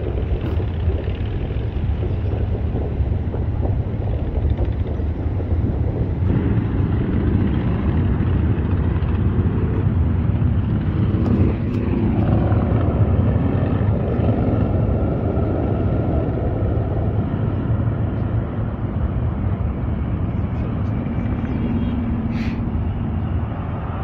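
Steady low rumble of vehicle engines, with pitched engine tones standing out from about halfway through.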